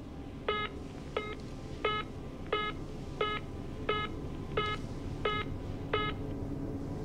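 Short telephone beeps coming from a phone handset, nine in a row at about one and a half a second: the signal tone of a line after the caller has hung up. The beeps stop about six seconds in.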